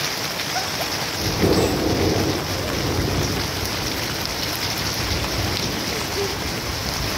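Heavy rain falling steadily on leaves and wet, puddled ground. About a second in, a low rumble of thunder starts suddenly and rolls on for several seconds.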